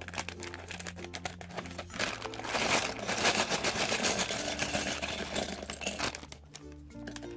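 Plastic LEGO parts bags crinkling as they are torn open and handled, loudest for a few seconds in the middle. Background music with a steady bass line plays underneath.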